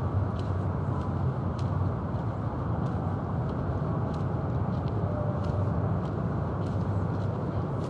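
Steady low rumbling outdoor noise, like wind on the microphone, with faint scattered ticks of light rain.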